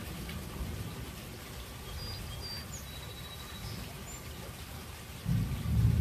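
Steady rain falling through a thunderstorm, with a low rumble underneath. A few short bird chirps come in the middle, and a louder roll of thunder begins near the end.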